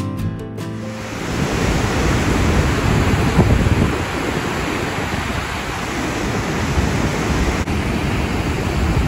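Montmorency Falls in spring flood: a dense, steady roar of water pouring over the crest and crashing into the gorge below. Strummed guitar music ends about half a second in.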